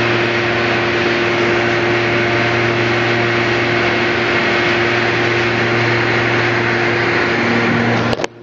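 Stevia leaf dryer running: a steady, loud mechanical noise with a constant hum, like a blower fan and its motor. It cuts off abruptly near the end.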